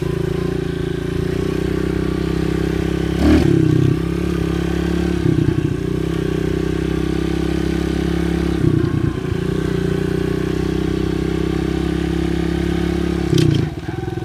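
Kawasaki KLX110 pit bike's small single-cylinder four-stroke engine running as it is ridden. Its note dips and rises briefly a few times, and there are sharp clacks about three seconds in and near the end.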